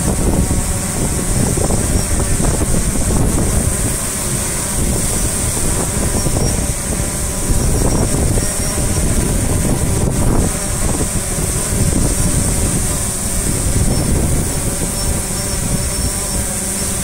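Strong, gusting wind buffeting the microphone, rising and easing, over the steady hum of quadcopter propellers: an Autel Evo and a DJI Phantom 4 Pro hovering in the gale.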